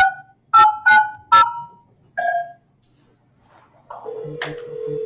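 Telephone keypad tones as a number is dialed: five short two-note beeps in the first two and a half seconds. A steady ringback tone starts about four seconds in.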